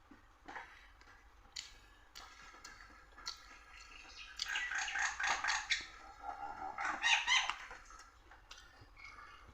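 A bird calling in two bouts of quick repeated notes, about four and seven seconds in, with a few soft clicks from eating before them.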